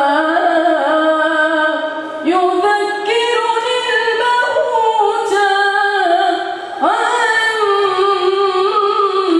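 A teenage boy singing an unaccompanied nasheed into a microphone, holding long notes that waver and slide between pitches. He breaks off briefly for breath about two seconds in and again near seven seconds.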